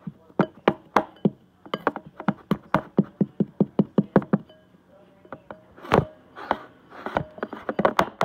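Kitchen utensil knocking in quick, even strokes, about four to five a second, stopping after about four seconds; a looser run of scraping strokes follows near the end.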